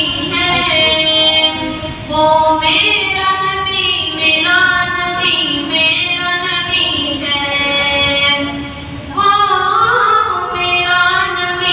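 A boy singing a naat, a devotional song, unaccompanied into a microphone: long held notes that bend and waver, in phrases of a few seconds each.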